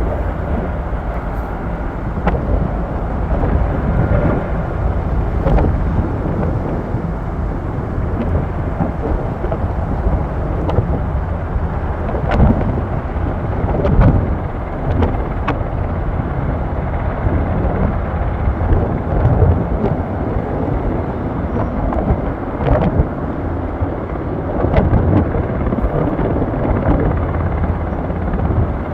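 KAI Surion firefighting helicopter running, a steady drone heavy in the low end, with wind buffeting the microphone.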